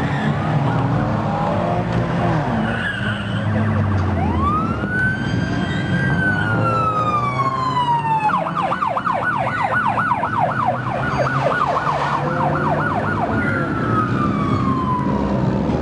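Police siren: a wail that rises, then slowly falls, switches to a fast yelp of about four cycles a second, and goes back to a falling wail near the end. Car engines run underneath throughout.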